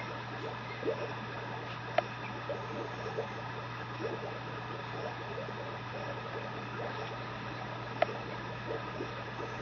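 Steady low electrical or mechanical room hum, with faint scuffs and rustles as a puppy moves and mouths a rope toy on a blanket. Two sharp clicks, one about two seconds in and one near the end, are the loudest sounds.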